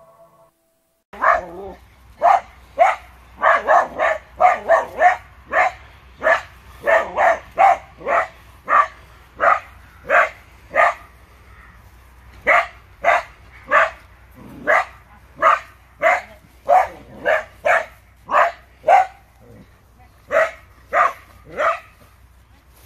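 McNab collie barking over and over, about two sharp barks a second with a few brief pauses, starting about a second in. This is reactive barking at another dog: hackles up and hard to control.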